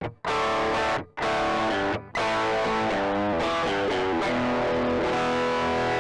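Fender Stratocaster electric guitar playing a distorted riff through an overdrive pedal. Twice in the first two seconds, about a second apart, the sound cuts off abruptly to silence as a kill-switch pedal mutes the signal, then it plays on through shifting notes.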